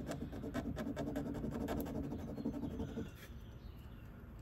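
Piece of jewelry rubbed hard back and forth on a scratch-test stone, a raspy scratching full of quick clicks that stops about three seconds in: making a streak of metal for an acid test of its gold or silver content.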